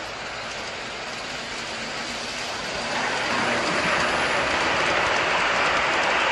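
G scale model freight train rolling along its track, a steady rolling noise of wheels on the rails that grows louder about three seconds in as the cars pass close by.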